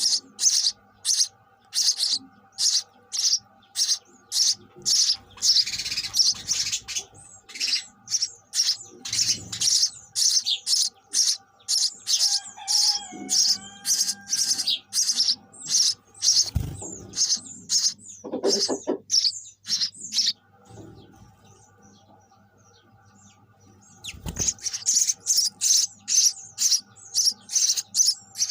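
Sparrows chirping in a fast, steady run of short high chirps, about two to three a second. The chirping breaks off for a few seconds about twenty seconds in, then starts again.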